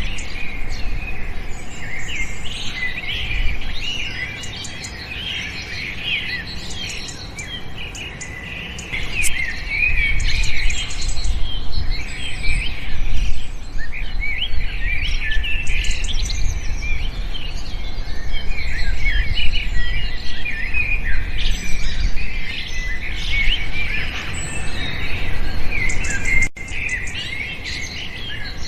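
A chorus of many small birds chirping and twittering over one another, busy throughout except for a sparser stretch about 4 to 9 seconds in, over a low background rumble.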